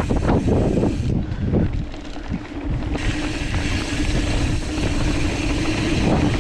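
Wind buffeting the microphone of a camera on a mountain bike rolling fast down a dirt singletrack, with tyre and frame rattles over bumps in the first second. A steady low hum joins from about two seconds in.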